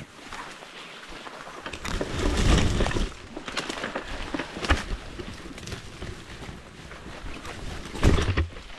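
Dry scrub branches and twigs scraping, rustling and cracking against a person forcing a way through dense heath, with footsteps; the loudest pushes come about two seconds in, near five seconds and near the end.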